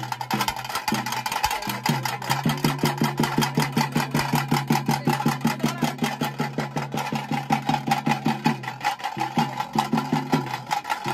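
Tasse drums beaten with sticks in a fast, steady rhythm, rapid strokes over a deeper pulsing drum tone.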